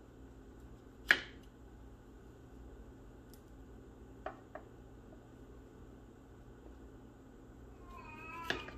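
A kitchen knife cutting broccoli on a plastic cutting board: one sharp knock of the blade on the board about a second in and two lighter taps around four seconds in. Near the end a cat gives a short meow.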